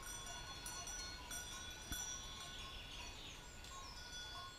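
Faint outdoor ambience with thin steady high tones and a single light knock about two seconds in.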